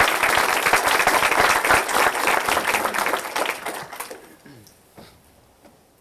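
Audience applauding, many hands clapping at once, dying away about four seconds in with a few last claps.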